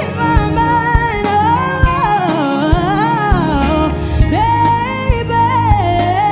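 Live singer holding long notes and sliding through melismatic runs over a band, with a steady kick drum beat about twice a second.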